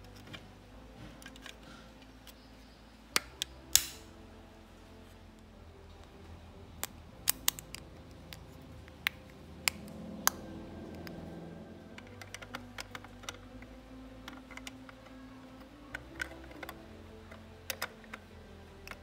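Small plastic parts of a toy ambulance model clicking and tapping as they are handled and fitted, with a few sharp snaps about three seconds in and scattered clicks after.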